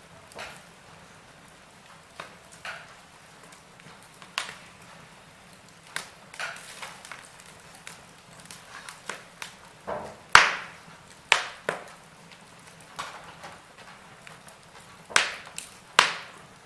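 Wood fire burning in a fireplace, crackling with irregular sharp pops and snaps over a faint low hiss, the loudest pops coming in the second half.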